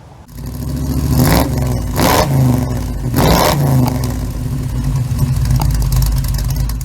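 Small-block Chevy 350 V8 engine of a 1936 Chevrolet coupe hot rod blipped three times in quick succession, then settling to a steady idle. The sound cuts off suddenly near the end.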